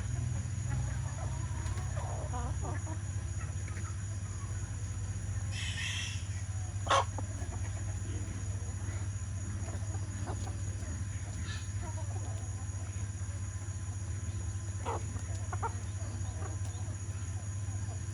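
Chickens clucking now and then over a steady low hum, with one short, sharp, louder sound about seven seconds in.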